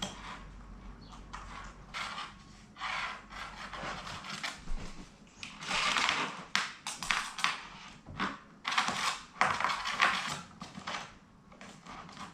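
Hands handling a cardboard jigsaw puzzle: irregular rustling and rubbing, louder from about halfway through.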